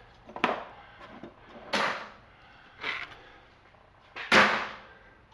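Four separate clunks of heavy metal transformer parts, the steel core and copper coil, being handled and set down on a workbench. The last one, near the end, is the loudest.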